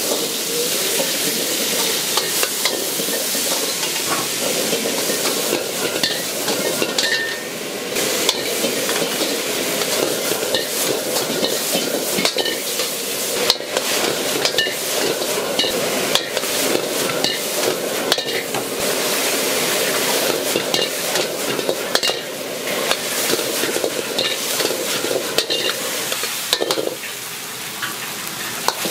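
Food sizzling as it is stir-fried in a wok, with a metal ladle clinking and scraping against the pan.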